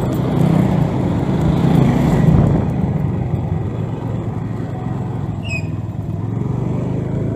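Motor scooter engine running at low riding speed, heard from the rider's seat. It is a little louder in the first couple of seconds, then eases off. A brief high chirp is heard about five and a half seconds in.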